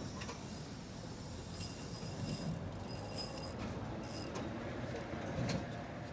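Hand tools and metal parts clinking during wrench work on a brake dust cover, over a low steady rumble, with a sharp click about five and a half seconds in.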